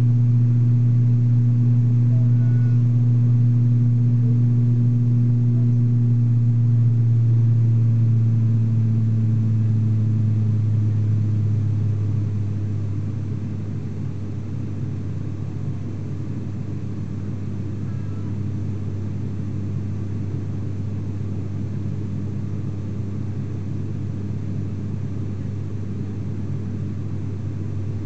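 Cabin drone of an ATR 72-600's Pratt & Whitney PW127 turboprop engine and propeller in the climb after takeoff, heard from inside the cabin: a steady low hum. About twelve seconds in it drops a little in pitch and gets quieter, as engine power and propeller speed are reduced after takeoff.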